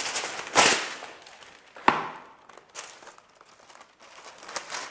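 Baking paper pulled off its roll and torn off: a crisp rustle about half a second in, a sharp snap near two seconds, then a few faint crinkles as the sheet is handled.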